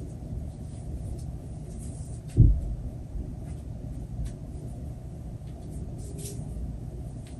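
Steady low background rumble, with one dull thump about two and a half seconds in and a few faint light clicks.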